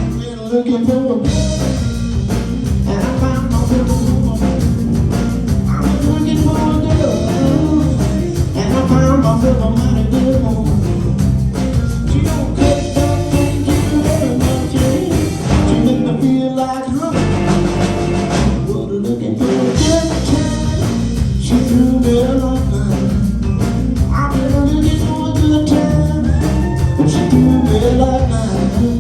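Blues band playing live, a full-band number with a steady beat and a wavering lead melody over it.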